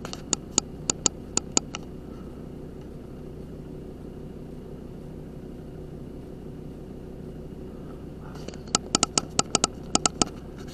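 A steady low hum with two runs of sharp clicks over it: about six in the first two seconds and about a dozen more, closely spaced, near the end.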